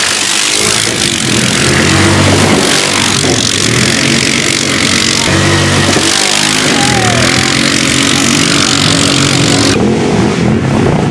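Quad bike engine revving up and falling back several times, under a steady loud hiss that stops shortly before the end.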